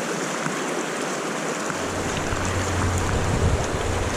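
Rushing river water, a steady even noise. A low rumble joins about two seconds in.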